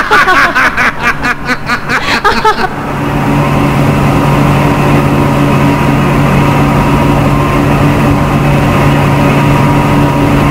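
Two people laughing, then from about three seconds in a steady mechanical hum of machinery, the film sound effect for the robot Ultra Seven being hoisted up toward the surface.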